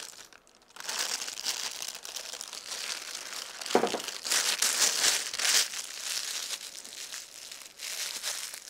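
Disposable plastic piping bag crinkling and rustling as it is filled with mousse and squeezed and twisted by hand, with a brief soft thump about four seconds in.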